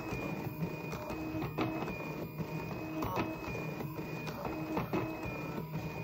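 Stepper motors of an Arduino-controlled Rubik's cube solving machine turning the cube's faces: a whine that starts and stops in short bursts, with sharp clicks between moves.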